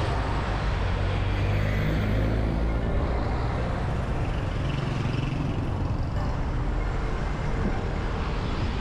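Steady road-traffic noise with a deep, continuous rumble of vehicle engines and tyres.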